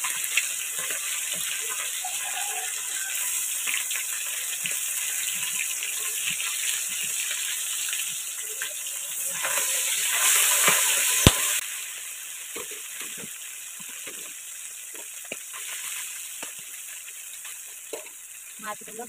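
Small salt-and-turmeric-coated fish sizzling as they fry in hot oil in a wok, stirred with a spatula. The sizzle is loud for the first eleven seconds or so, then drops after a single sharp knock, with scattered light knocks of the spatula against the pan.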